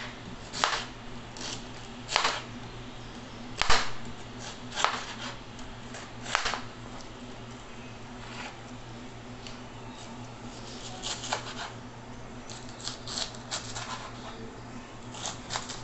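Kitchen knife cutting half an onion on a plastic cutting board: irregular knocks of the blade hitting the board, a few spaced seconds apart at first, then quicker runs of chops near the end. A steady low hum sits underneath.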